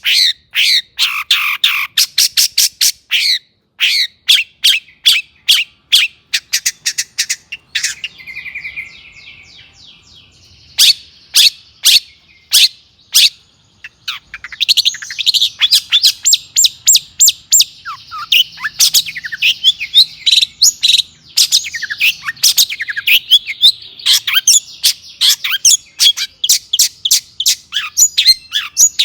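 Long-tailed shrike (cendet) singing: runs of sharp, quickly repeated high notes, a softer quieter passage about eight seconds in, then from about halfway a dense fast chatter mixed with loud sharp notes.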